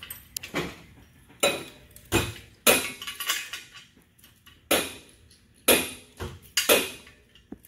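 Irregular sharp metallic clanks and clinks, about nine in all, of tools and engine parts being handled during an engine removal.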